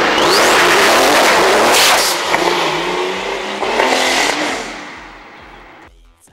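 Turbocharged Porsche 911 flat-six engine revving hard and loud, over background music with a steady beat. The engine fades out about five seconds in, leaving the music.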